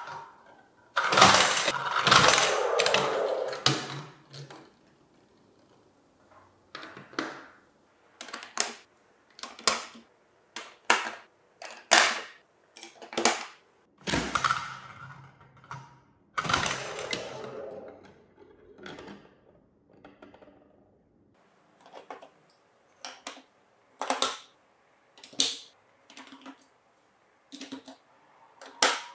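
Balls of a VTech Marble Rush plastic marble run rolling along the track and clacking against its plastic pieces. Longer rolling runs come about a second in and again around halfway, with separate sharp clicks between and after them.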